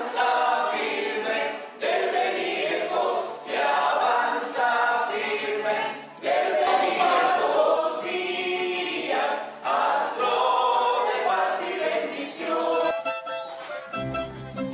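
A group of voices singing a song together, in phrases of about two seconds with short breaks between them. About a second before the end the sound changes and lower notes come in.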